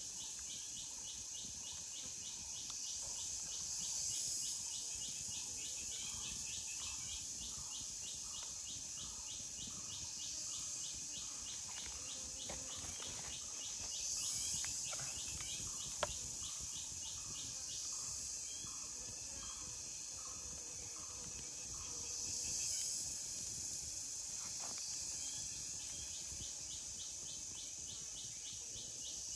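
Forest insect chorus: a high shrill drone that swells and fades every several seconds, over a fast, even pulsing call and, at times, a slower rhythmic chirping. One sharp click about sixteen seconds in.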